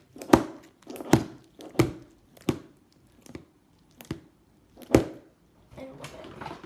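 Slime being shoved back into a plastic container: a series of about seven sharp thuds and knocks, roughly one a second, followed by quieter handling noise near the end.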